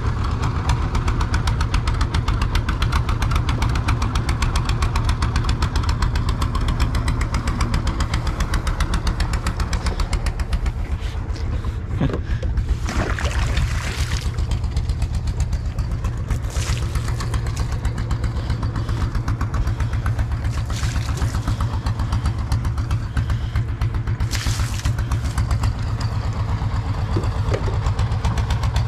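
Small fishing boat's engine running steadily with a fast, even throb, with a few brief rushes of noise over it.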